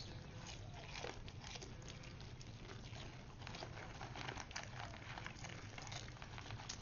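Paper popcorn bag crinkling and rustling in quick, irregular crackles as a deer pushes its muzzle into it and eats from it.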